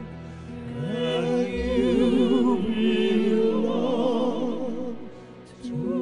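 Operatic vocal music: several voices sing long notes with wide vibrato over steady low held tones. It dips briefly about a second before the end, then comes back.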